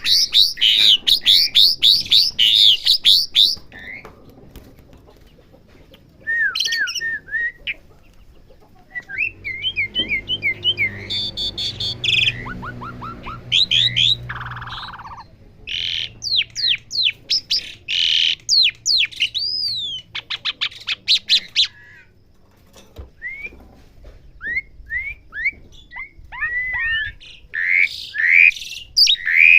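Asian pied starling (jalak suren) singing: bursts of rapid, repeated whistled and chirping notes that sweep in pitch, with a few short pauses between phrases.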